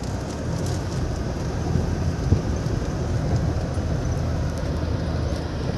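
Force Gurkha's diesel engine running steadily under light load, heard from inside the cabin as the 4x4 drives slowly over a muddy track. There is a single knock a little over two seconds in.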